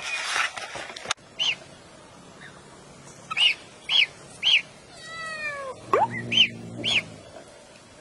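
Duckling peeping: short, high, arched chirps, six in all at irregular intervals, with one longer falling call about five seconds in.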